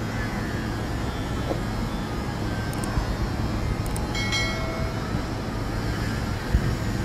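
The Nissan diesel engine of a 1997 Kato 25-ton truck crane running steadily with a low hum. A short high-pitched squeal comes about four seconds in, and a single sharp knock near the end.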